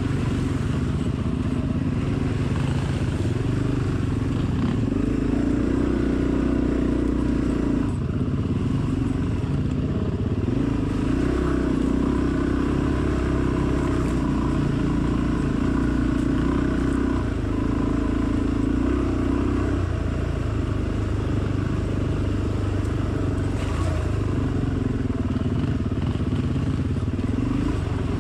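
Dirt bike engine pulling off-road, its note swelling and dropping back every few seconds as the throttle is opened and closed.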